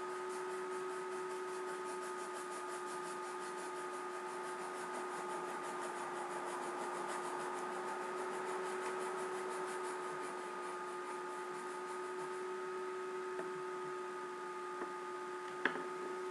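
Steady room tone: a hiss with a constant low hum and two fainter whining tones, as from a computer and microphone running, broken by one sharp click near the end.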